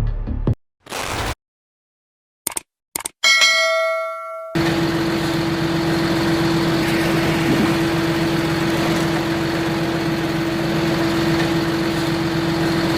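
A few short sounds broken by silence, then a ringing chime, followed about four and a half seconds in by a steady machine drone with a constant hum, like an engine running.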